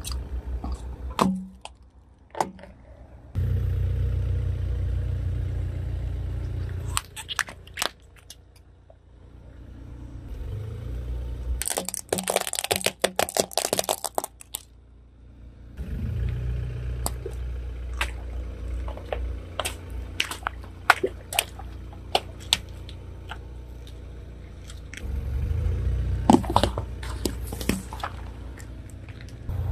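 A car's tyre rolls slowly over small plastic toys and containers on concrete, crushing them. A low steady rumble from the car runs under sharp cracks and crunches as the plastic breaks. The densest run of cracking comes about halfway through. The sound stops and restarts several times as one crushing gives way to the next.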